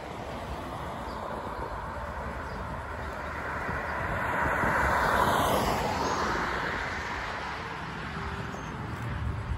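Road traffic on a busy street: one vehicle's tyre and engine noise swells as it passes close, peaks about halfway through, then fades, over a steady background rumble of traffic.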